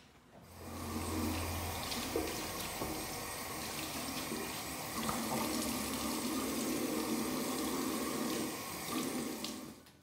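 Bathroom tap running into a ceramic washbasin while hands are washed under it; the water starts about half a second in and stops shortly before the end.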